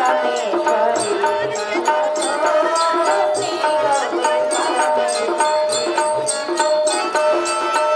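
A woman singing into a microphone over steady hand-drum strokes and an accompanying melody, as live folk-theatre music.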